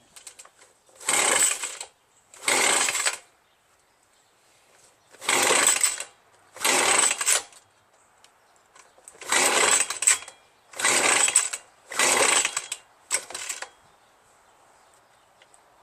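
Recoil starter rope of a Ryobi 25.4cc two-stroke backpack leaf blower being pulled about eight times, in pairs and threes with short pauses. Each pull is a brief rasp, and the engine does not catch while on choke.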